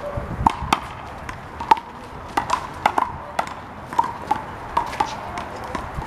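Rubber handball being slapped by players' hands and rebounding off a concrete wall and the court's pavement during a rally: a rapid, irregular series of sharp slaps.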